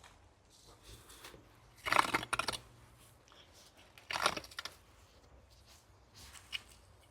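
Dry vines and leaves rustling and tearing as they are pulled away, in two short crackling bursts about two and four seconds in.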